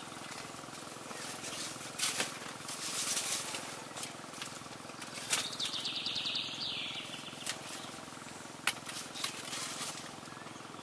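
Outdoor ambience: a steady hiss with scattered sharp clicks and knocks, and one short falling, fluttering call about six seconds in.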